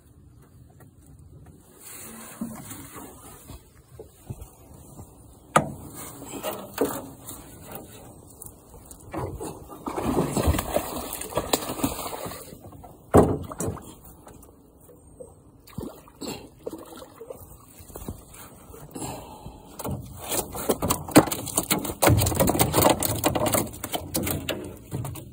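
Irregular knocks, bumps and rubbing in a small aluminium jon boat, with two sharp clanks, one about five seconds in and one about thirteen seconds in. Rougher, louder stretches of handling noise come around the middle and near the end.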